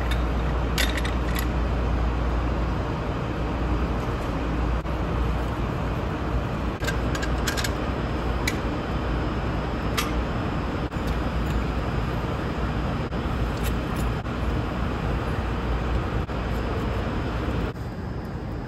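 Steady low rumbling background noise, with a handful of sharp metal clicks from a hydrant wrench, extended with unistrut, working in the valve of a Smith ground hydrant.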